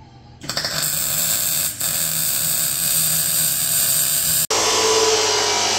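Welding arc crackling and hissing as steel box section is tack-welded to the car's rear chassis. It starts about half a second in, with a brief break near two seconds. About four and a half seconds in the sound cuts abruptly to a different steady machine noise with a tone in it.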